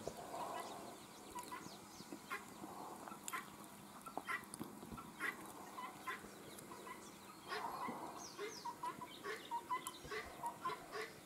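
Chickens clucking, with scattered short chirps and clicks and a quicker run of chirps after about eight seconds.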